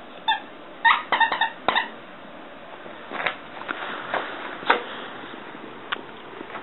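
A Yorkshire terrier's short, high-pitched burps: one about a quarter second in, then a quick run of four about a second in. Softer short clicks follow.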